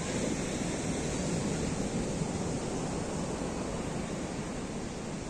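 Ocean waves breaking on a sandy beach, a steady wash of surf noise, with wind noise on the microphone.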